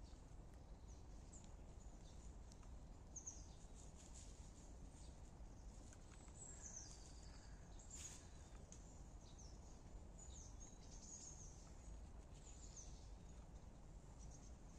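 Quiet woodland ambience: faint bird chirps and calls, short and high, scattered throughout over a low steady rumble, with a single faint tick about eight seconds in.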